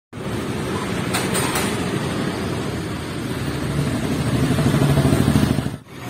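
Motorcycle engine running, growing louder over a couple of seconds before cutting off just before the end.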